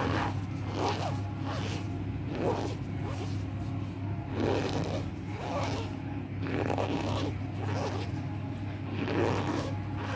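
Cornstarch being squeezed and crumbled, giving a run of squeaky crunches about one a second over a steady low hum.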